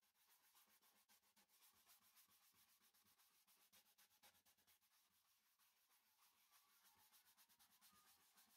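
Faint steady rasping of a cloth pad rubbed hard against a macrocarpa pine bowl on the lathe, working shellac into the grain.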